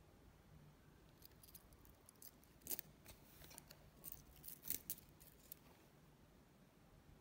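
Small metallic clicks and clinks from a metal watch bracelet and its fold-over clasp being handled, scattered over about four seconds, with two louder clicks.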